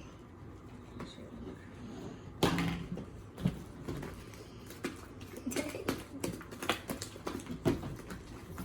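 Sticky slime being kneaded and squeezed by hand, giving irregular wet squelches and small clicks and pops. A short hummed or cooing voice sound comes about two and a half seconds in.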